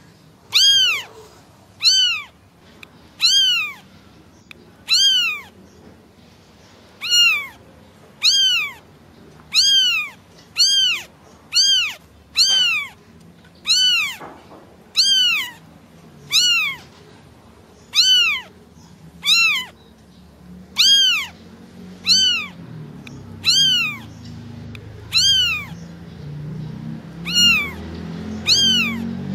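Kitten meowing over and over, about once a second: short, high calls that rise and fall in pitch, a kitten calling for its mother. A low rumble grows underneath near the end.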